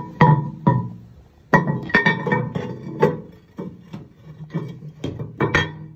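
Glazed ceramic lid of a Fowler toilet cistern being set back onto the cistern: a run of sharp porcelain-on-porcelain clinks and knocks, some ringing briefly.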